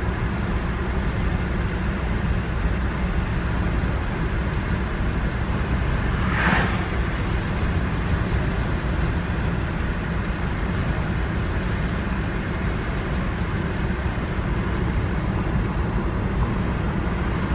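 Steady low road and engine rumble inside a Volkswagen Beetle's cabin while driving. A brief hiss cuts through about six and a half seconds in.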